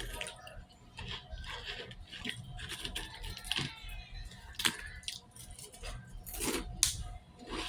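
Eating close to the microphone: irregular wet clicks and smacks of chewing, with a few sharper clicks.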